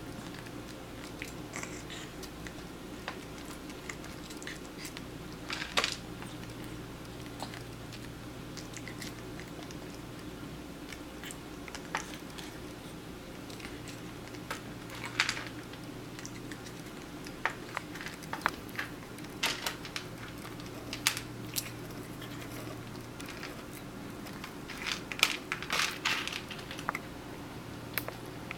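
A longhaired cat biting and crunching bits of food taken from chopsticks: scattered clusters of short crisp crunches and clicks over a steady low hum.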